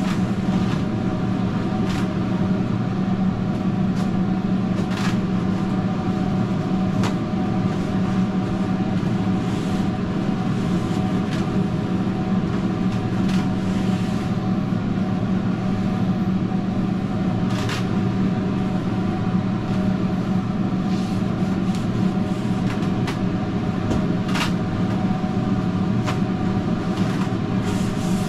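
Steady machine drone with a strong low hum, kitchen equipment running in a food truck. A few light clicks and taps break through it now and then as the griddle top is wiped down with a rag.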